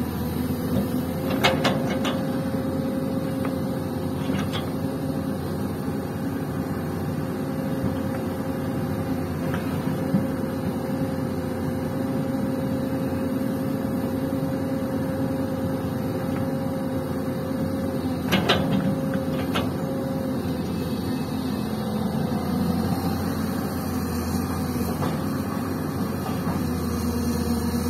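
Diesel engines of a Hyundai crawler excavator and a dump truck running steadily at a loading site. A few sharp knocks come about two seconds in and again near two-thirds of the way, as bucketloads of soil drop into the truck's steel tipper bed.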